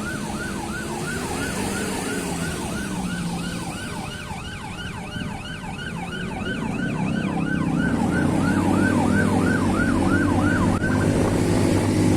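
Electronic emergency siren in a fast yelp, about three falling sweeps a second, cutting off near the end. A motorcycle engine and wind on the microphone grow louder over the second half as the bike speeds up.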